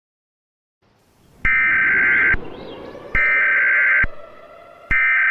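Emergency Alert System SAME header: three identical bursts of warbling data tones, each just under a second long and about 0.8 s apart, the first starting about a second and a half in. This digital burst encodes the alert and opens an emergency broadcast.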